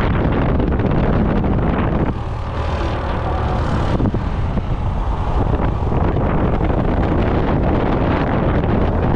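Motor scooter riding along at speed: heavy wind buffeting on the action camera's microphone over the scooter's running engine. About two seconds in, the rumble thins to a hissier wind noise for about two seconds, then the buffeting returns.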